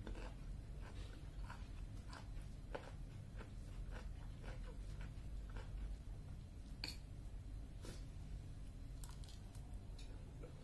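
Close-miked chewing of food, with irregular small crackles and clicks, and a spoon clinking against a ceramic plate now and then, the sharpest clink about seven seconds in.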